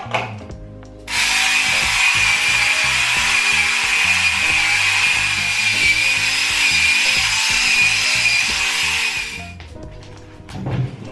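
Small corded electric hair remover running against the skin of the underarm: a steady, loud motor whine that switches on about a second in and cuts off after about eight seconds.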